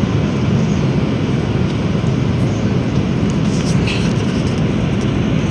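Steady low roar of an Airbus A330's engines and rushing air, heard inside the passenger cabin during the climb after takeoff.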